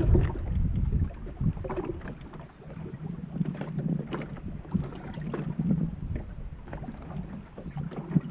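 Wind buffeting the microphone on a small fishing boat, heaviest in the first second, then a softer steady low rumble with a few scattered knocks.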